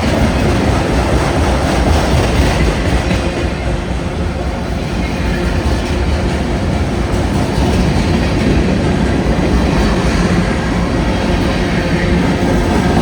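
Union Pacific freight train's cars rolling past, a steady loud noise of steel wheels running on the rails.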